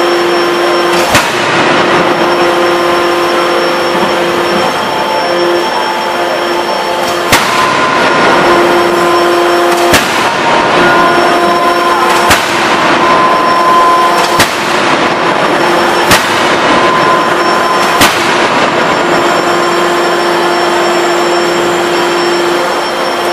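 A 10-ton electro-hydraulic closed-die forging hammer strikes a hot flange blank with seven sharp blows: one about a second in, then six roughly every two seconds from about seven seconds in. Under the blows runs a loud, steady machinery hum with several held tones.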